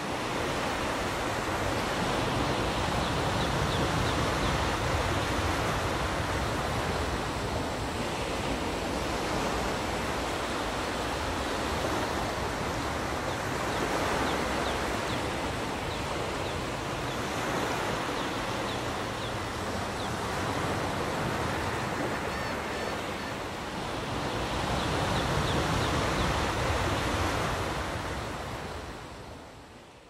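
Ocean surf washing onto a beach: a steady rush of waves that swells and eases every few seconds, fading out near the end.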